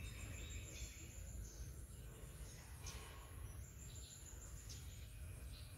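Faint background noise: a steady low rumble with scattered short, faint high chirps and ticks.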